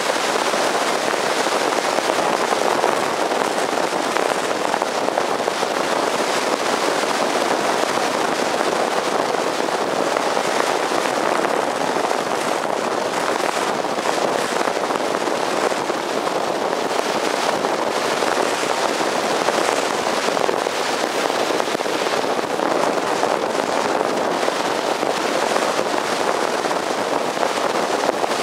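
Steady rush of wind and road noise over a roof-mounted camcorder's microphone at highway speed, a rough crackling hiss that holds level throughout.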